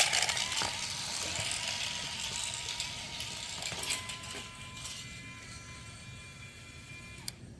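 Robo Alive King Cobra robotic toy snake's small battery-powered motor and gears whirring as it moves, slowly fading, with a faint steady whine in the second half.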